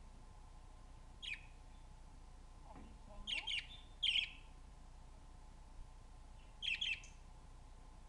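Budgerigar giving short, sharp chirps: a single one about a second in, a quick run of three or four around three to four seconds, and a pair near the end.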